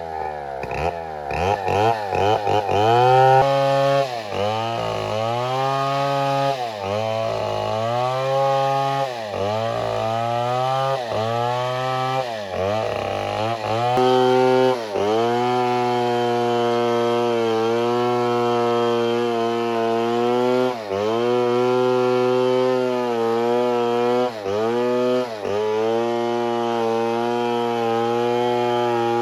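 Two-stroke chainsaw cutting wood, the engine pitch dipping under load and climbing back again and again. After about midway it runs steadier, with only occasional dips.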